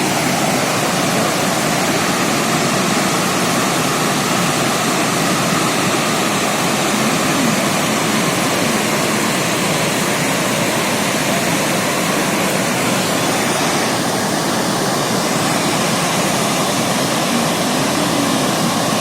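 Waterfall: the loud, steady rush of falling water.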